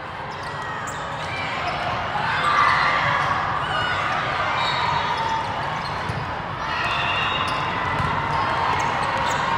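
Volleyballs being struck and bouncing, over a continuous din of many voices from players and spectators echoing in a large exhibition hall. The din swells about two seconds in.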